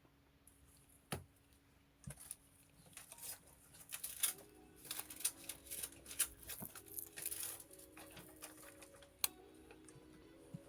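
Quick, irregular clicks and taps of small tools and phone parts being handled during a smartphone repair, thickest through the middle, over soft background music.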